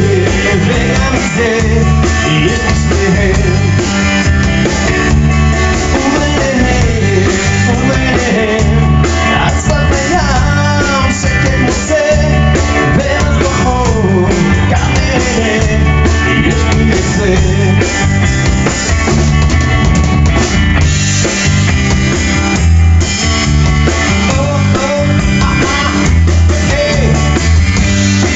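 Rock band playing a passage without lyrics: a drum kit keeping a steady beat under bass and electric guitar, with a gliding lead melody on top.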